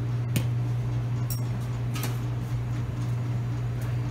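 A steady low machine hum, with a few light clinks of stainless steel milkshake cups and pottery mugs being handled and set down, the loudest a knock near the end.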